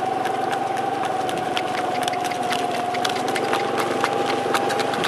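A small engine running steadily at one pitch, with quick scattered clicks throughout.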